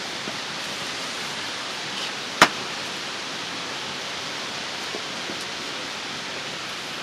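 Steady, even hiss of outdoor background noise, with one sharp click about two and a half seconds in.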